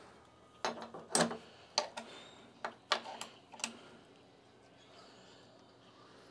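A metal speed square and a putty knife being set down and shifted on a table saw top: about eight light knocks and clicks over the first four seconds.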